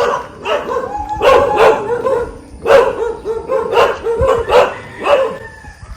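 Dogs barking repeatedly, short sharp barks about twice a second.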